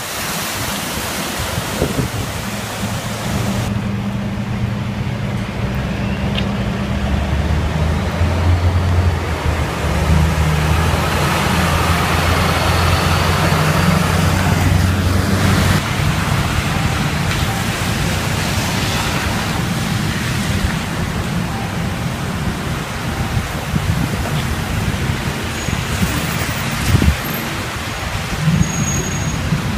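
Road traffic driving through floodwater: tyres hissing and splashing through standing water on the street, with a steady low engine hum from a vehicle through the middle stretch.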